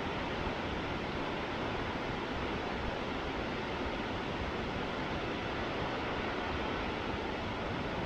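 Steady rush of water from the 350 m Shōmyō Falls and the rapids of the rocky river below it, an even roar with no breaks.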